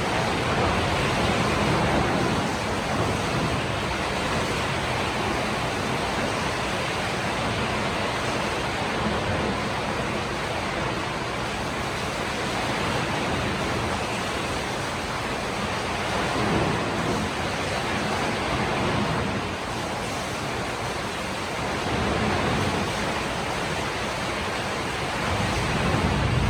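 Heavy rain falling in a steady, dense hiss that swells and eases slowly.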